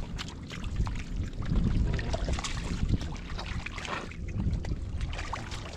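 Shallow muddy water sloshing and splashing as hands grope through it, with irregular small splashes and wet knocks.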